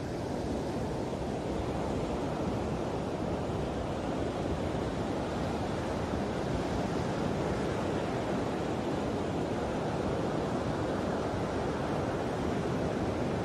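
Steady rush of ocean surf on a beach, with wind on the microphone.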